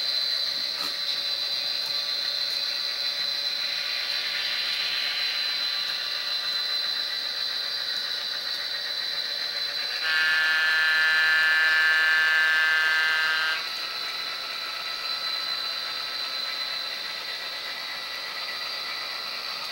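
Tsunami sound decoder in an HO-scale diesel locomotive playing steady engine running sound through the model's small speaker, with a mechanical, rattly character. About halfway through, the horn sounds one steady chord for roughly three and a half seconds, then cuts off.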